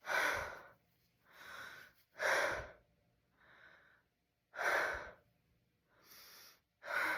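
A person's pre-sneeze gasping: about four sharp, loud gasping breaths alternating with softer breaths, each about half a second long, as a sneeze builds but does not come.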